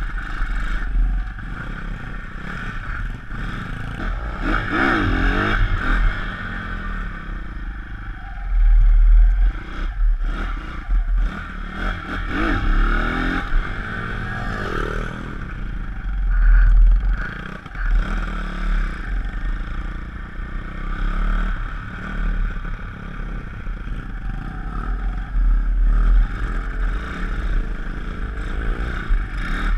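Pit bike's 160cc YX single-cylinder four-stroke engine running under way, revving up and down several times as it rides over rough grass and dirt, with heavy rumbling surges in the low end.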